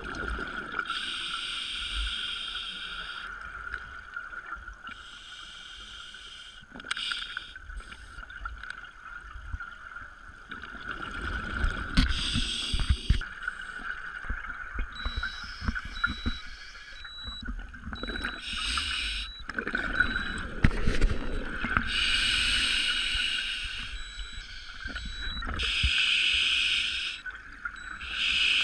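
Scuba diver breathing through a regulator underwater: a noisy burst of breath and bubbles every few seconds, each lasting a second or two, over a steady high hum.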